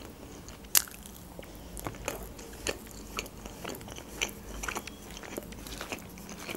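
Close-miked chewing of iskender doner meat, with scattered wet mouth clicks and smacks.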